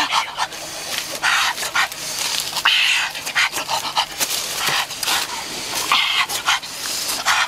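A person eating roast turkey and panting loudly through a wide-open mouth, several hard breaths with wet chewing and lip-smacking clicks between them.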